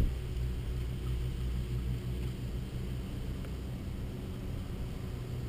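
Steady low rumble with no clear events.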